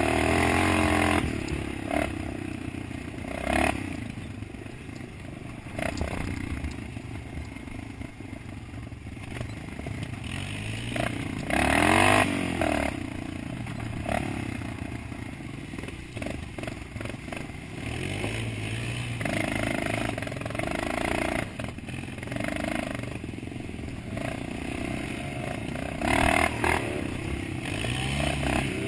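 Dirt bike engine revving up and down while riding a rough trail, with the rattle and scrape of the bike over bumps. The sharpest revs come right at the start, about twelve seconds in, and near the end.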